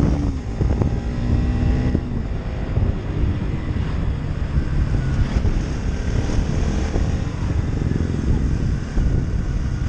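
Wind rumbling on the microphone of a motorcycle ridden at road speed, with the motorcycle's engine running underneath.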